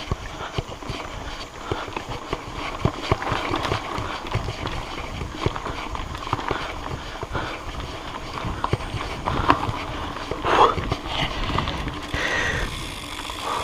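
Mountain bike rolling fast over a rough, rocky trail: tyres and bike clattering with many irregular knocks and rattles, and a louder jolt about ten seconds in.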